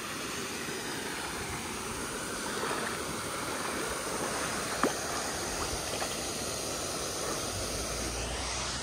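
Shallow lake water lapping and trickling around an inflatable paddle board at the water's edge, a steady wash of water noise. A single sharp click sounds about five seconds in.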